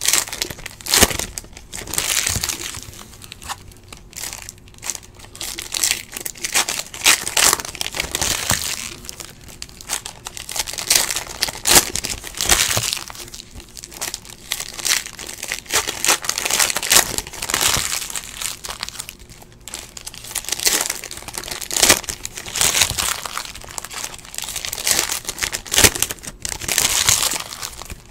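Foil wrappers of Panini NBA Hoops trading card packs crinkling and tearing as the packs are handled and ripped open. It comes in irregular crackly bursts, one after another.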